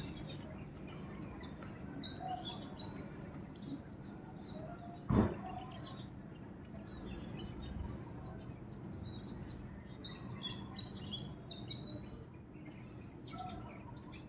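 Small birds chirping in many short high calls over a steady low background hum, with a single short thump about five seconds in.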